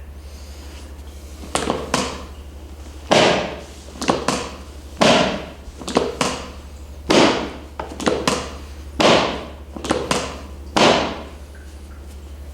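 A series of about a dozen sharp strikes, roughly one a second and some in quick pairs, each fading over about half a second.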